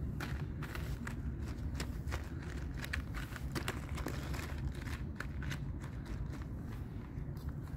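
Cats eating kibble and wet food from plastic trays, with quick irregular crunching clicks over a steady low rumble.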